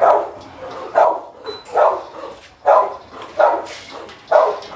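A dog barking repeatedly, about one bark a second.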